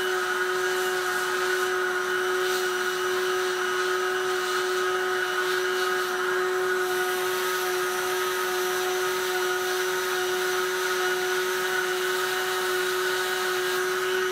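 Handheld heat gun running steadily, blowing hot air onto a plastic car part: a constant motor whine over the rush of air.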